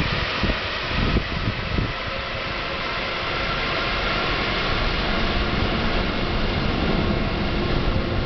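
Rubber-tyred Paris Metro MP73 train running into the tunnel: a steady rumble and hiss from its rubber tyres with a faint whine over it. A few clunks come in the first couple of seconds.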